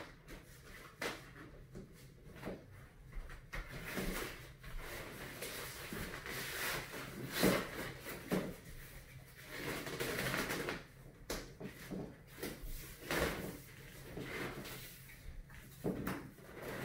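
Fabric rain fly rustling and hooks and tent frame clicking as the fly is pulled over a pop-up tent and hooked down, in irregular handling noises with a sharper knock about seven and a half seconds in.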